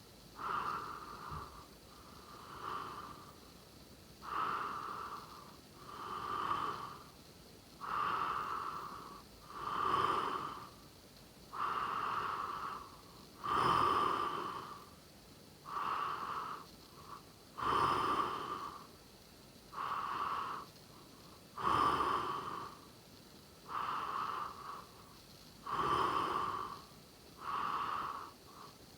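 A sleeping person snoring: a steady run of rasping breath sounds, each about a second long, coming about every two seconds.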